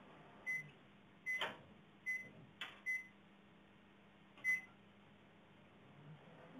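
Keypad of a kitchen appliance beeping as buttons are pressed: five short high beeps, the first four about a second apart and the last a little later. A couple of light clicks fall among them.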